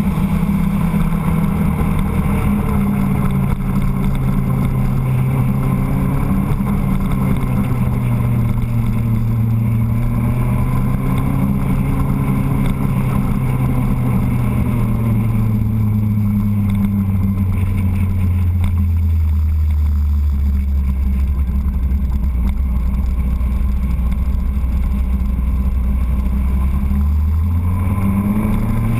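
Motorcycle engine running under way, heard from on board the bike. Its pitch holds fairly steady, falls slowly through the middle as the revs drop, stays low for several seconds, then climbs again near the end.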